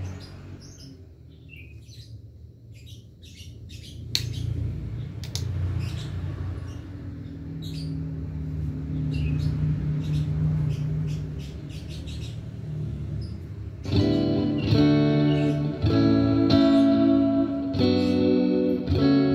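Electric guitar through an effects unit: first a low hum with scattered clicks while the guitar is handled, then, about two-thirds of the way in, loud played chords and notes ringing out.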